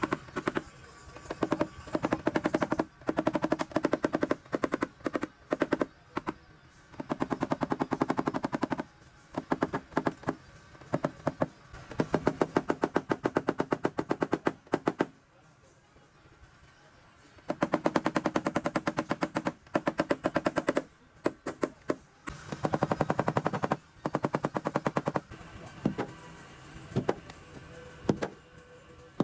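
Rapid, even tapping in repeated bursts of a second or two, many light strikes a second: the sheet metal of a dented truck bedside being tapped down during paintless dent repair.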